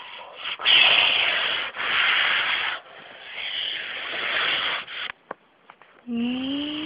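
Loud rubbing and scraping handling noise in about three long strokes with short breaks, as the toys and phone are moved about. Near the end a voice holds a tone that rises slightly.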